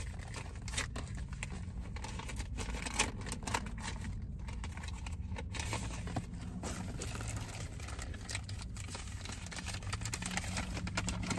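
Paper rustling and crinkling in irregular soft bursts as an envelope and card are opened and handled, over a low steady hum.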